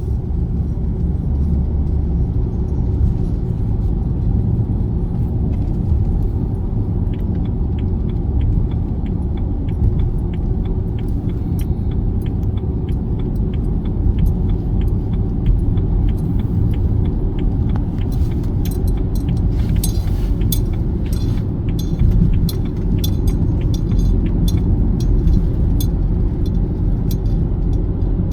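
Steady low road and engine rumble heard from inside a moving car's cabin. A light, regular ticking joins about a quarter of the way in, and scattered small clicks and rattles come in the last third.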